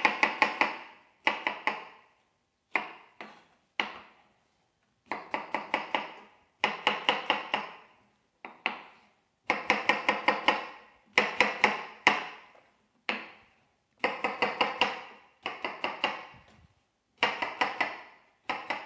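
Kitchen knife slicing white onion on a wooden cutting board: runs of quick knife strikes against the board, about five a second, broken by short pauses between runs.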